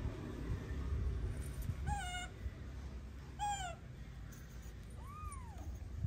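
Young tabby kitten meowing three times in short, high calls while pinned to the floor, the last one fainter and rising then falling, over a low rumbling background.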